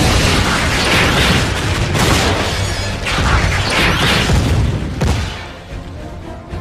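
Heavy booms and crashing action sound effects over music. They start abruptly, surge several times and die away after about five seconds.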